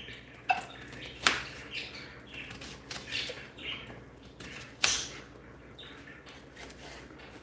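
Knife work on a cutting board while shallots are cut and handled: two sharp clicks of the blade striking the board, about a second in and near five seconds, with light scraping and rustling of the shallots between them.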